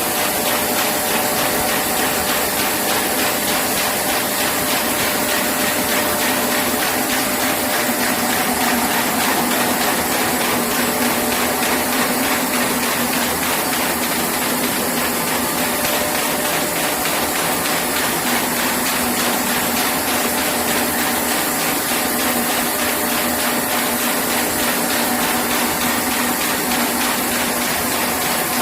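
Booklet paper-folding machine running steadily: a constant mechanical hum with a rapid, even ticking as it feeds and folds sheets.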